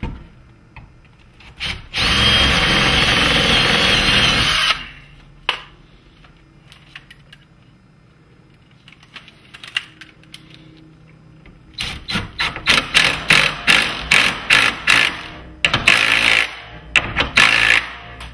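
Cordless drill/driver with a socket bit running: one steady, whining run of about three seconds early on, then, after a pause, a long series of short rapid trigger pulses as it drives a screw through a metal bracket into a wooden door jamb.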